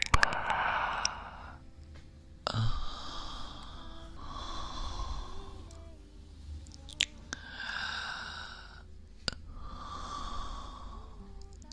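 A man breathing slowly and deeply close to the microphone, about five long breaths of roughly two seconds each with short pauses between them. A couple of faint clicks come in the second half.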